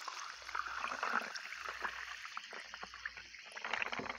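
San Pellegrino sparkling mineral water fizzing: a soft, steady hiss of bursting bubbles dotted with small crackles.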